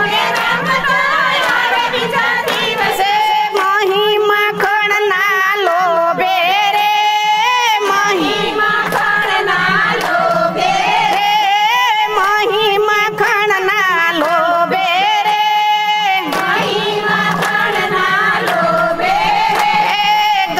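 Group of women singing a Gujarati devotional kirtan together, with hand clapping keeping the beat.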